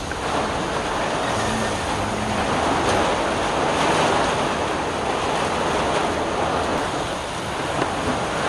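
Steady hiss of rain falling, swelling a little toward the middle and easing slightly near the end.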